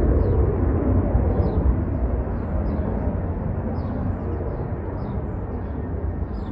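Jet airliner's engines rumbling as it climbs away after takeoff, the roar slowly fading.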